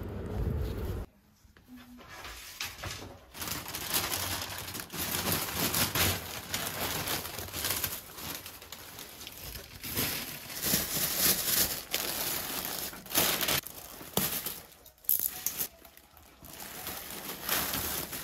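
Thin plastic bags crinkling and rustling in irregular bursts as clothes are handled in and out of them. A low rumble cuts off about a second in.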